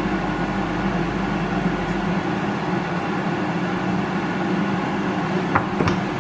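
Moulinex air fryer preheating, its fan whirring steadily. A couple of small clicks near the end.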